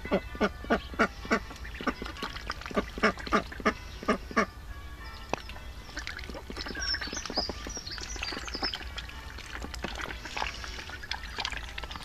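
Ducks quacking: a fast, regular run of loud quacks, about three a second, over the first four seconds or so. After that come softer, scattered quacks and short high squeaky calls.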